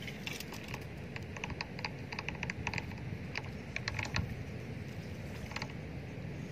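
Irregular run of small mechanical clicks from a fishing reel being worked, with a last click about five and a half seconds in, over steady low wind noise.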